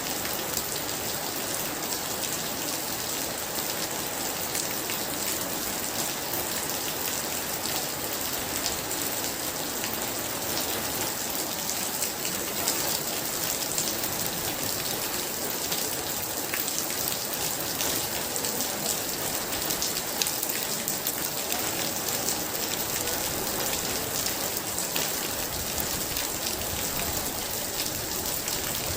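Heavy rain falling steadily: a dense, even hiss with sharp drop ticks scattered through it.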